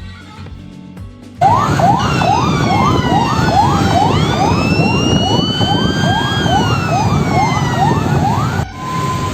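Electronic toy ambulance siren, a fast yelp of rising sweeps about two and a half a second with a slower wail gliding over it. It starts about a second and a half in and cuts off near the end, giving way to a steady single beep tone.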